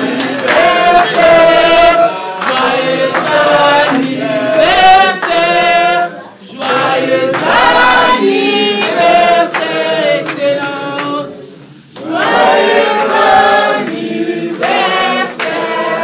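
Several voices singing together in chorus, in long held phrases with two short breaks, about six and twelve seconds in.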